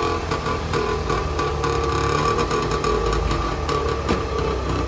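A 1986 Trabant 601S's air-cooled two-stroke two-cylinder engine idling, a steady, buzzy running sound.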